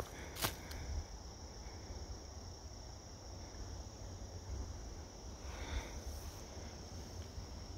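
Steady high-pitched insect chorus, a continuous thin drone like crickets, over a low rumble on the microphone, with a single click just after the start.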